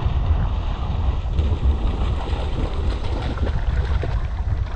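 Wind buffeting the microphone in a steady low rumble, with irregular water splashing as a dog in a life jacket bounds and wades through shallow water.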